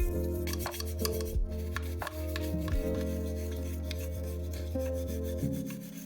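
Repeated rubbing and scraping strokes on a small scale-model part worked by hand, over background music with sustained notes and a low drone that drops away near the end.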